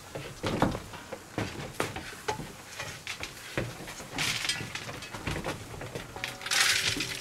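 A man's footsteps and goats' hooves on a wooden board platform: irregular knocks and thuds on the boards, with two longer scuffing sounds about four and six and a half seconds in.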